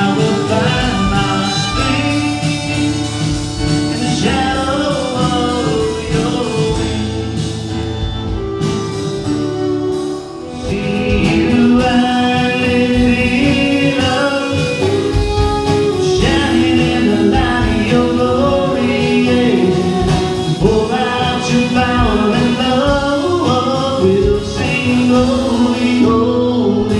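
Church praise band rehearsing a worship song: voices singing over the band. The music dips briefly about ten seconds in, then comes back fuller and louder.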